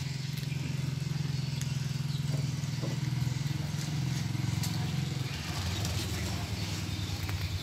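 Motorbike engine running steadily, its pitch dropping lower about five seconds in.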